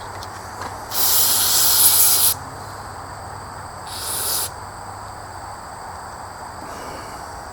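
Aerosol spray can hissing in two bursts: a long one of over a second, then a short half-second one, as cleaner is sprayed onto the chainsaw's grimy parts.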